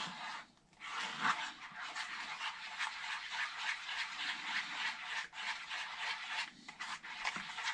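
Fork whisking batter in a paper bowl: quick, steady scraping strokes of the tines through the batter and against the bowl, with a few brief pauses.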